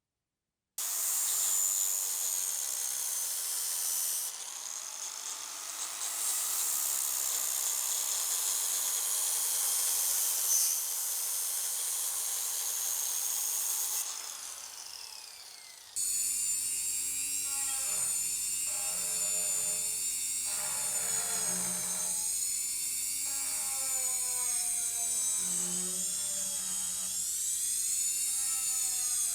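Electric power tool working the steel of a knife blade. First comes an even, high abrasive hiss. From about halfway a motor whine takes over, its pitch wavering up and down as the tool is loaded and eased.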